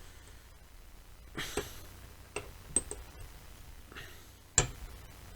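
A handful of scattered light clicks and knocks from parts and tools being handled, with a short rustle about a second and a half in and the sharpest knock near the end.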